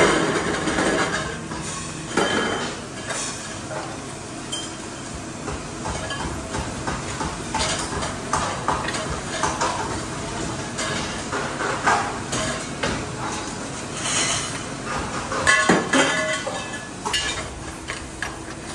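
Metal parts clanking and clinking in irregular knocks and rattles, some with a short ring, as metal workpieces are handled; the louder bursts come at the start and twice in the last few seconds.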